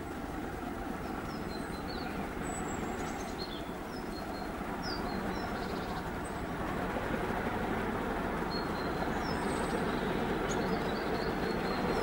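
An unseen diesel-hauled train approaching, its rumble growing steadily louder. Small birds chirp now and then above it.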